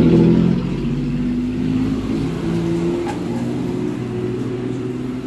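A motor vehicle engine running steadily, its pitch shifting now and then.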